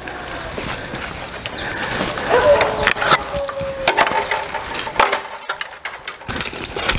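Footsteps crunching through dry leaf litter, with irregular sharp cracks of dry twigs and sticks snapping underfoot.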